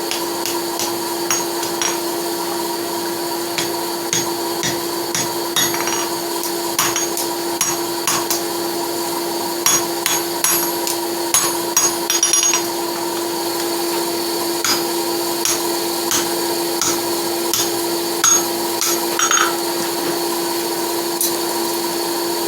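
Blacksmith's hammer striking a steel horseshoe on an anvil to straighten it, in irregular sharp blows that bunch up around the middle and again near the end. Under the blows a forge air blower keeps up a steady hum.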